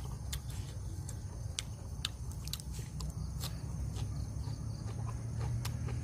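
A person chewing grilled squid close to the microphone, with irregular sharp mouth clicks, over a steady low rumble.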